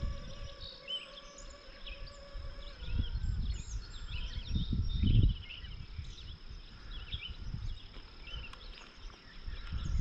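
Wind gusting against the microphone in low rumbles, strongest about five seconds in, over birds chirping and a steady high insect drone. A faint steady hum stops about three seconds in.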